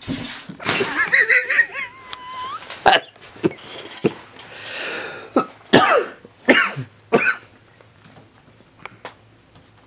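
People laughing under their breath and coughing, in a string of short bursts through the first seven seconds or so.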